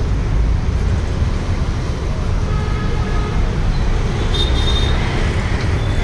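Twin-piston air compressor pump, driven by a 2 HP single-phase electric motor, running with a steady, fast low rumble.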